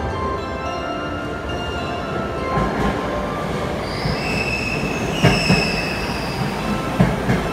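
JR West 521 series electric train pulling into the platform and slowing, its wheels squealing in high whines over a rising rumble, with a couple of sharp clunks from the wheels passing rail joints.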